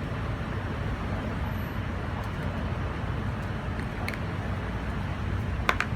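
Steady low background rumble, with a few light clicks about four seconds in and again near the end.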